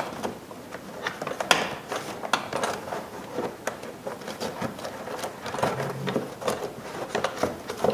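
New panel air filter being pressed down into a plastic air-cleaner housing: irregular clicks, taps and scraping of plastic against plastic.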